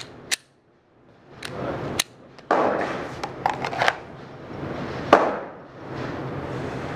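Sharp metallic clicks and knocks of a semi-automatic pistol being loaded and made ready: magazine seated, slide racked and the gun holstered, heard as a handful of separate clicks over a few seconds.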